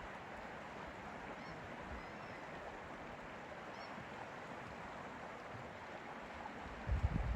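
Steady, gentle sound of lake water, with a few faint high bird chirps. Near the end, wind gusts rumble on the microphone.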